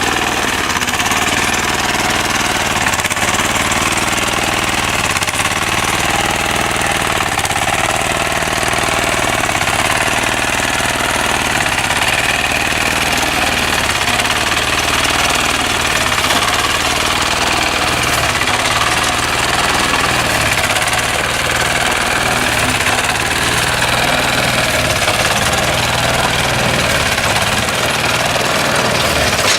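An engine running steadily with a rapid knocking rattle.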